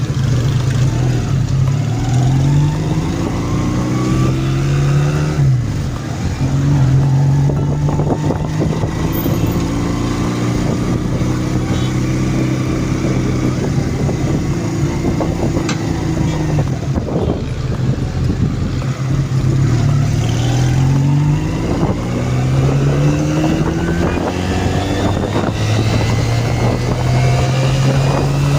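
Honda CD200 Roadmaster's air-cooled parallel-twin four-stroke engine running under way, rising in pitch as it pulls and dropping at each upshift. It is heard about three times: near the start, around twenty seconds in, and again near the end. It sounds smooth, as a freshly restored engine should.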